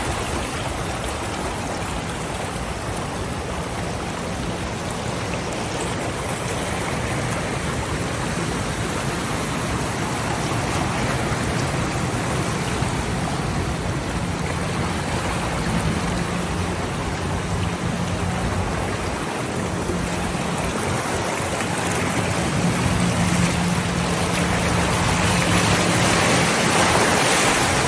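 A motor vehicle's engine running with a low hum under a dense, steady noise, growing a little louder near the end.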